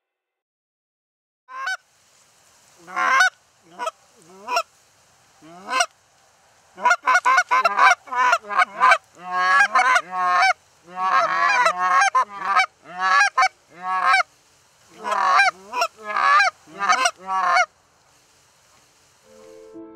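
Canada geese honking: a few separate honks at first, then a dense run of overlapping honks that stops a couple of seconds before the end.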